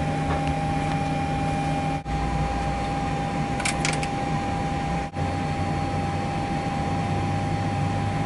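Steady hum and whine in a Boeing 737-800 cockpit while engine 2 is being started with its start valve open. A few quick clicks come about four seconds in as the start lever is moved. The sound breaks off briefly twice.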